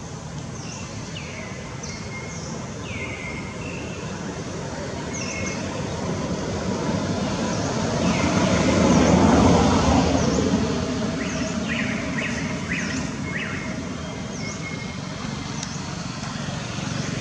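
A road vehicle passing, its noise swelling to a peak about nine seconds in and then fading away. Birds give short, high chirps throughout.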